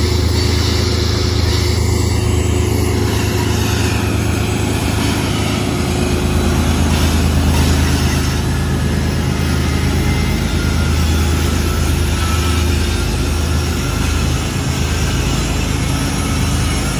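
Pair of BNSF GE diesel locomotives at the rear of a coal train passing close by: a loud, steady engine drone with a strong low hum.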